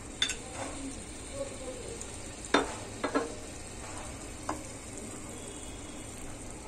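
Wooden spatula stirring thick chicken curry in a nonstick pot on the stove, with a handful of sharp knocks of the spatula against the pot, the loudest about two and a half seconds in, over a steady sizzle from the curry cooking.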